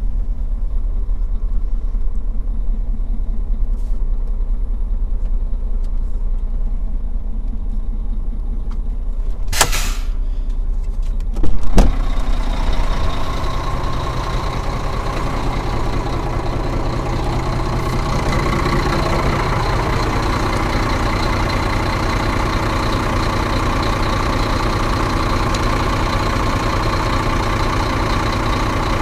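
Heavy truck's diesel engine idling, heard from inside the cab. A little under ten seconds in there is a short burst of noise, then a loud clunk as the cab door opens, after which the idle sounds louder and more open.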